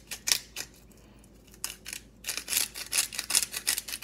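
Hand-twisted salt grinder grinding coarse Himalayan salt crystals: quick runs of crunchy clicks, a short pause about a second in, then fast continuous grinding from about two seconds on.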